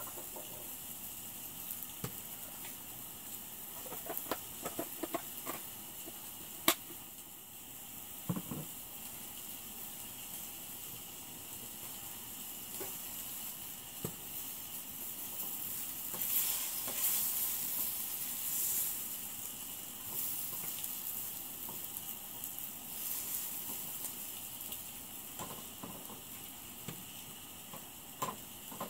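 Onions and mushrooms sizzling in a frying pan on a propane camp stove, with a few sharp clicks of a utensil against the pan in the first few seconds and again near the end. The sizzling swells for a few seconds about halfway through.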